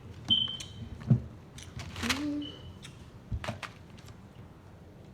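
Light handling of stretchy bungee-band fidget toys: scattered faint clicks and taps, with two brief high squeaks and a short vocal sound near the middle.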